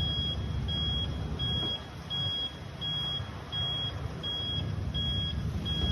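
Small truck's external warning beeper sounding a high, single-pitch beep over and over, roughly every 0.7 seconds, over a low idling-vehicle rumble. The alarm is set off by a scooter beside the truck while it waits at a light, which the uploader says is not in any blind spot.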